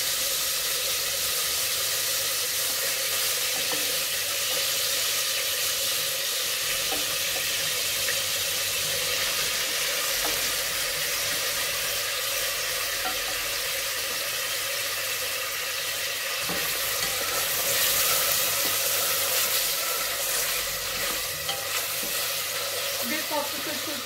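Boiled lamb cubes sizzling as they brown in hot olive oil in a stainless steel pot, a steady frying hiss. A wooden spoon stirs them now and then with light knocks.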